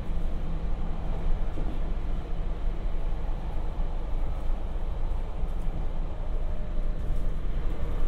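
JR Hokkaido 721 series electric train running, heard from inside the passenger car: a steady, deep rumble of wheels and running gear on the rails.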